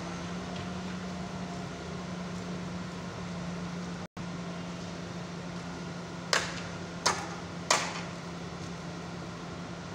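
Auger piling rig's diesel engine running steadily with a low, even hum. About two-thirds of the way in come three sharp knocks, less than a second apart.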